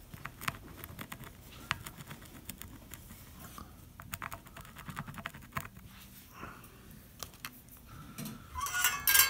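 A lump of solid rosin rubbed and dabbed against the pins of a chip on a circuit board, making irregular small clicks and scratches as it crumbles. There is a louder cluster of clicks near the end.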